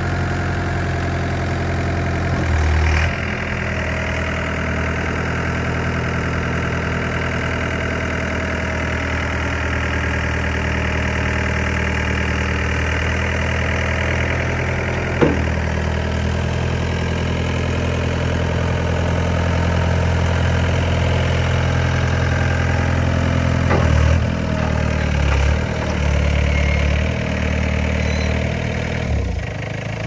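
Dieci MiniAgri 25.6 telehandler's diesel engine running steadily while its boom is lowered. The engine note shifts briefly about three seconds in and several times near the end, and there is one sharp click about halfway.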